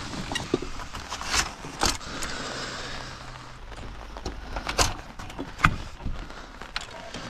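Several sharp knocks and clatters with a light metallic jingle, the loudest about five and a half seconds in, over a steady outdoor background, as gear is handled around a motorhome.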